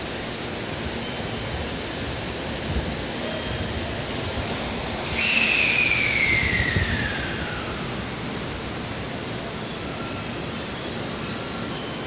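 Steady station background noise. About five seconds in, an electric train's motor whine starts suddenly and falls steadily in pitch over about three seconds, as a train slows.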